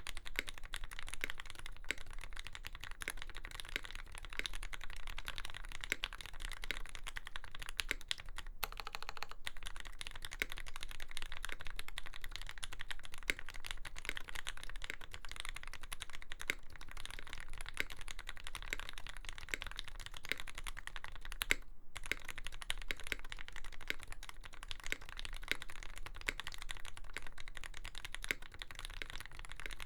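Steady fast typing on a Lyn Dolphin V3 custom mechanical keyboard with lubed Gateron Fei switches fitted with Cherry black tops, an aluminium plate and GMK keycaps: dense key clacks, with two brief pauses, about a third and three quarters of the way through.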